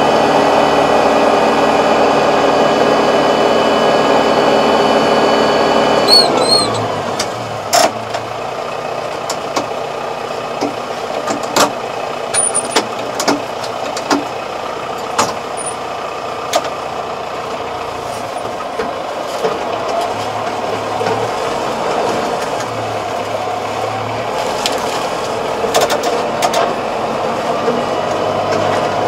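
Tractor diesel engine running at a high steady speed, then dropping to a lower, quieter speed about six seconds in. It keeps running while the machine drives, with scattered clanks and knocks from the mounted rotary tiller and the tractor's linkage.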